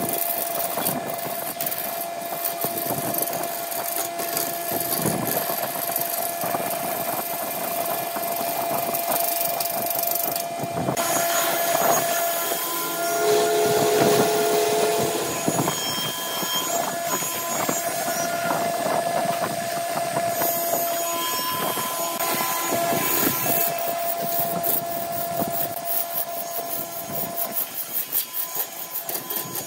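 Wood lathe running with a steady motor hum while a hand-held turning tool cuts into the spinning wooden blank, giving a continuous rough scraping as the shavings come off.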